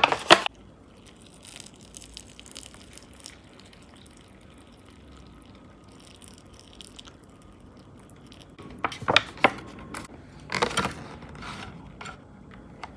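A short rustle as a dried-vegetable packet is emptied into a plastic instant-noodle tray, then water poured steadily into the tray. Near the end come a few rustles and light taps as the paper lid is pressed down and chopsticks are laid on top.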